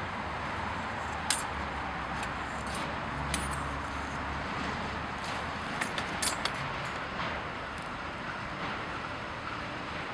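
Bent steel wire rake tines clinking lightly a few times as they are handled, with a small cluster of clicks about six seconds in, over a steady background hiss.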